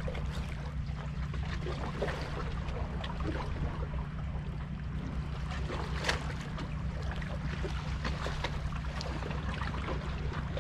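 Small waves lapping and splashing irregularly against jetty rocks over a steady low rumble of wind on the microphone.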